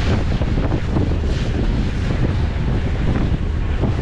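Wind buffeting the microphone at the open window of a passenger ferry under way, over the boat's steady running noise and the rush of water.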